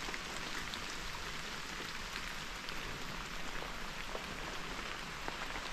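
Steady rain falling: an even hiss with scattered ticks of individual drops.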